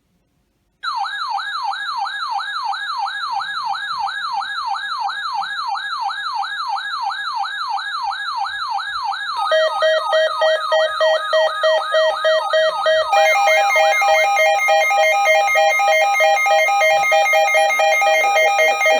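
Electronic siren tone that yelps up and down rapidly, about three to four sweeps a second. About halfway through it switches to a louder, steady, rapidly pulsing chord of tones, and more tones join a few seconds later.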